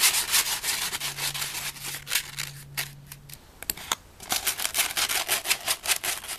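Sandpaper rubbed by hand in quick back-and-forth strokes over a small wooden handle, smoothing raw branch wood. The strokes pause briefly a little past halfway, then resume.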